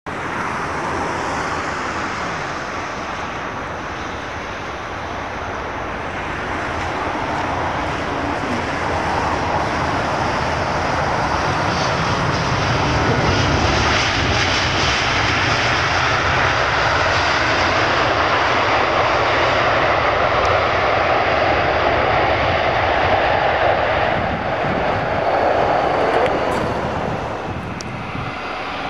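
Airbus A321 jet engines running as the airliner moves along the runway: a steady rushing noise that grows louder through the middle and eases near the end.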